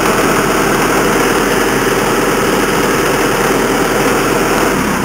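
Vermeer SC60TX stump grinder's engine idling steadily, throttled down; the low end of the engine sound drops away just before the end.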